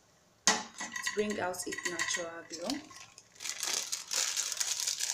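A measuring spoon clinking and scraping against a glass mixing jug as turmeric powder is tapped out into melted black soap. It starts suddenly about half a second in, with ringing clinks first and quicker tapping and scraping in the second half.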